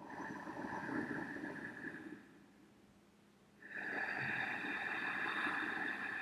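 Ujjayi breathing: slow breaths drawn through a slightly constricted back of the throat with the lips sealed, heard as a steady breathy hiss. One breath lasts about two seconds; after a short pause a longer one starts a little under four seconds in.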